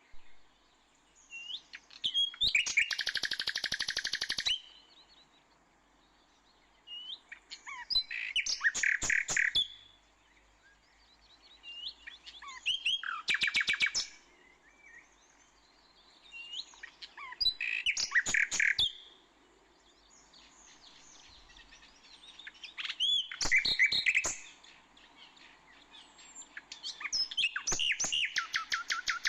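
A songbird singing the same short phrase over and over, about once every five seconds. Each phrase has a few whistled slides and ends in a fast trill.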